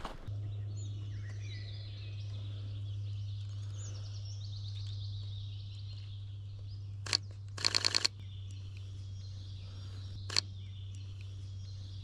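Songbirds singing and chirping among trees over a steady low hum, broken by camera shutter clicks from a Sony A7R V: one click about seven seconds in, a rapid burst of about five right after, and a single click again about three seconds later.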